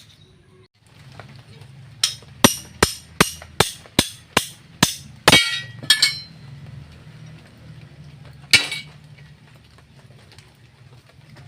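Hammer blows on metal: a run of about ten sharp ringing strikes, two to three a second, then a single strike a few seconds later, over a low steady hum.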